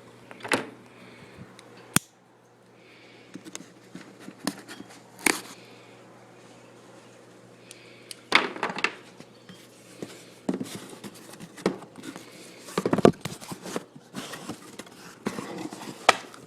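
A mailed package being opened and unpacked by hand: scattered sharp clicks, knocks and rustles of cardboard, paper and foam packing being handled, busiest in the second half.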